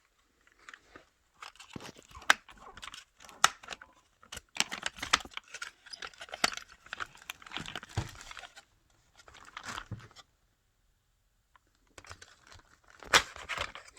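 Hands handling a plastic 1/10-scale RC truck: scattered clicks, rattles and plastic crinkling, with a quiet pause about ten seconds in.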